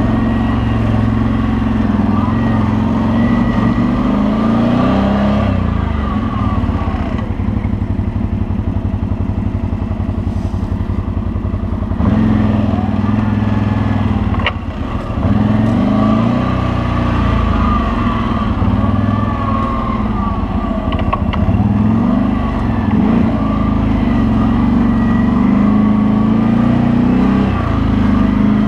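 CFMOTO CForce 800 ATV's V-twin engine running as it is ridden, the revs rising and falling with the throttle. About a quarter of the way in it settles to a quieter, lower-revving stretch for several seconds, and near the middle the revs briefly drop off before picking up again.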